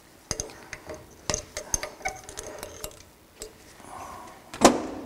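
Metal tool and shock parts clinking at a bench vise: a run of irregular light clicks and taps, some with a brief ring, then one louder knock near the end.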